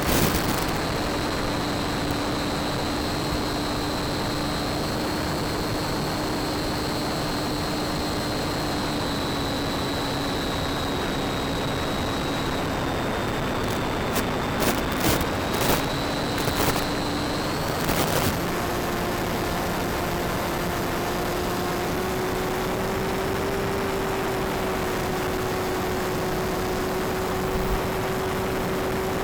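Electric motor and propeller of a Bixler model plane running at a steady whine under a constant hiss. Its pitch steps up a little about 18 seconds in, just after a few sharp crackles.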